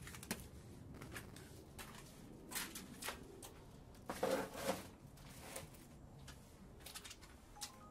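Faint handling noise: scattered light clicks and rustles, with a louder rustle about four seconds in.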